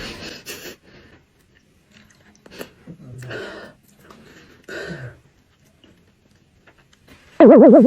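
Soft chewing with two short rasping throat sounds from a sleeping man, then about seven seconds in a loud wobbling, warbling cartoon sound effect.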